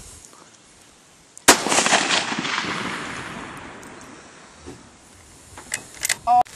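A single shot from a .222 Remington bolt-action rifle about a second and a half in, its report fading away over about three seconds. Near the end, a few sharp metallic clicks as the bolt is worked.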